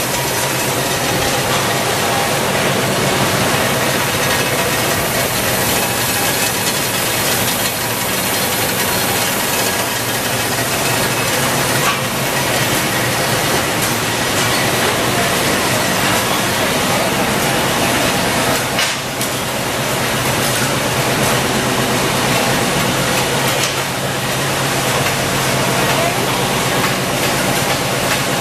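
Candy production machinery running steadily: a continuous mechanical whir over a steady low hum from the conveyors and the die forming rollers.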